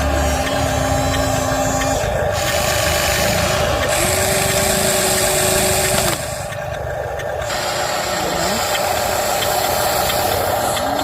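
Radio-controlled model excavator and dump truck running: a steady engine-like hum, with motor whines that rise and fall in pitch several times.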